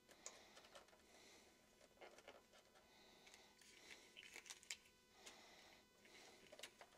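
Near silence, with faint scattered clicks and soft rustles of small plastic grow domes being handled and set over the seed pods in an AeroGarden hydroponic grow deck.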